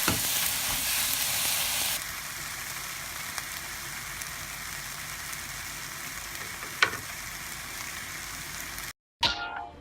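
Food frying with a steady sizzle that drops to a quieter level about two seconds in, with a single clink about seven seconds in. The sizzle cuts off near the end, and plucked-guitar background music begins.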